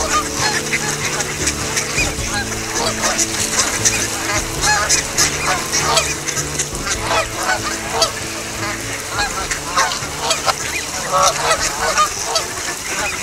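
A large mixed flock of waterfowl calling on the water, with Canada geese honking over a continuous chatter of many short, overlapping duck calls.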